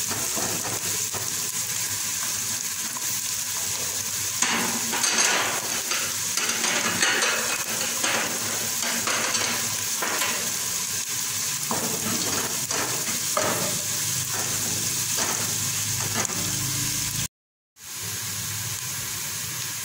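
Diced onions sizzling in oil in a deep non-stick pot, with a wooden spatula stirring and scraping through them in irregular strokes, most often in the middle stretch. The sound cuts out for about half a second near the end, then the sizzling goes on.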